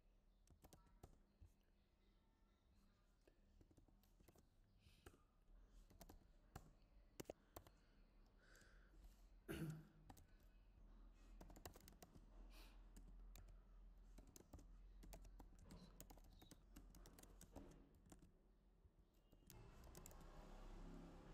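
Faint typing on a computer keyboard: irregular key clicks, with one louder knock about halfway through.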